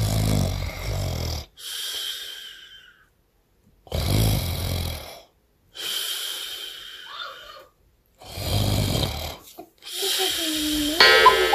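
A man snoring: three deep snores on the in-breath, each followed by a hissing out-breath, with short pauses between. Music starts right at the end.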